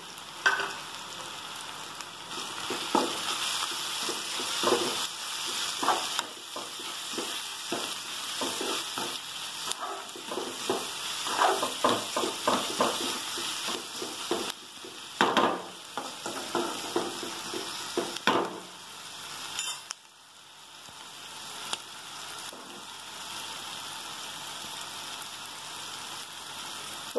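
Chopped onions, tomatoes and green chillies sizzling in oil in a metal kadai as spice powders are stirred in. A metal spatula scrapes and knocks against the pan. The stirring stops about two-thirds of the way through, leaving only the steady sizzle.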